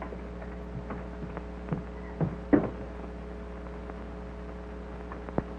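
Steady hum and hiss of an early sound-film soundtrack, broken by several short clicks and thumps. The loudest comes about two and a half seconds in, and a sharp click sounds near the end.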